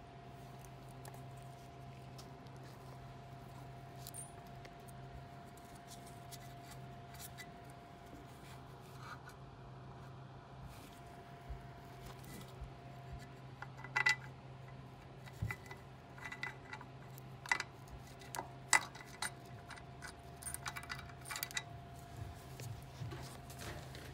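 Scattered small metallic clicks, clinks and scrapes of bolts and hardware being handled and worked into a winch mounting plate from underneath, mostly in the second half. A steady low hum runs underneath.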